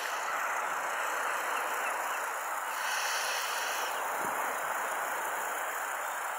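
A steady, even hiss of outdoor background noise with no distinct sounds standing out.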